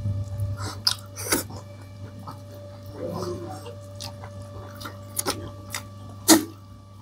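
Eating sounds: chewing with scattered sharp clicks and taps against the plate, the loudest about six seconds in, over a steady low hum.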